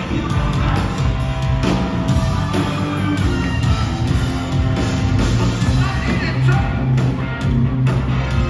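Live rock band playing loudly: electric guitar over a steady drum beat, heard from among the audience.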